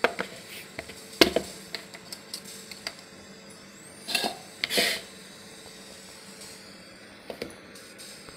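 Clicks and knocks of a steel mixer-grinder jar and its plastic lid being handled, with a sharp knock about a second in and two short scraping noises around four and five seconds; the grinder motor is not running.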